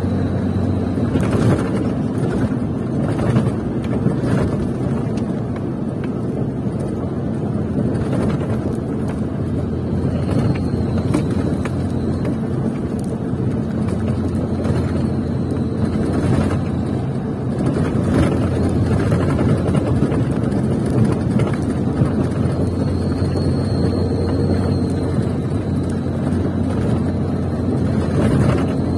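Cab interior sound of a laden UD Quester GWE-330 diesel trailer truck driving at steady speed on the highway: steady engine drone and tyre and road noise, with a few brief knocks over the road.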